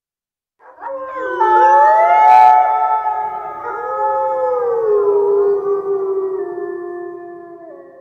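Werewolf howl sound effect: a long, wolf-like howl with several pitches layered at once. It starts about half a second in, rises, then slowly falls and fades away near the end.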